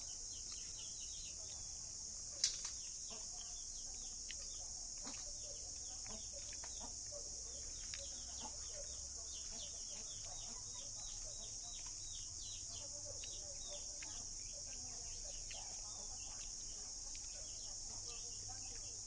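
Steady high-pitched drone of an insect chorus, with many quick falling chirps over it and a single sharp click about two and a half seconds in.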